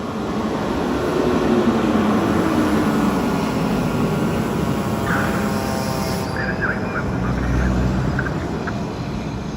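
A fire truck driving past, its engine and tyre noise swelling over the first couple of seconds, then slowly fading near the end.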